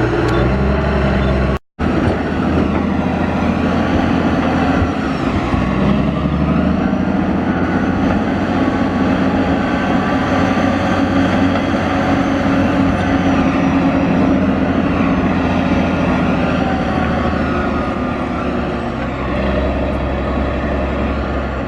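Caterpillar D10 bulldozer's diesel engine running hard while the dozer works, its pitch rising and falling with the load. The sound drops out completely for a moment about two seconds in.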